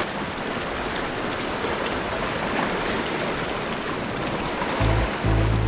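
Steady rushing, splashing water noise. Background music with a deep bass note comes in about five seconds in.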